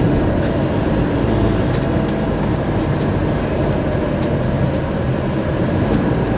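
Steady drone of a Fiat Ducato-based Bürstner motorhome's diesel engine and tyres, heard inside the cab while driving.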